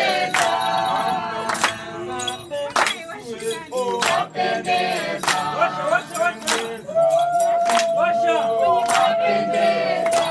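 A group of chefs and staff singing a birthday song together, led by men's voices, over a sharp beat struck a little more often than once a second. About two-thirds of the way through, one voice holds a long note to the end.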